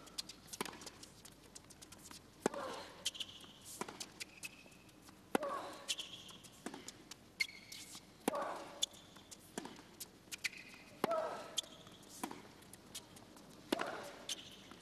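Tennis baseline rally on a hard court: racket strikes on the ball alternate about every second and a half. Every other shot comes with a player's short grunt, and short high squeaks sound between the strikes.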